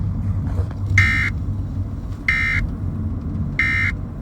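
Emergency Alert System end-of-message data burst: three short, identical buzzy bursts of digital tones about a second apart, which mark the close of the alert. A steady low rumble runs underneath.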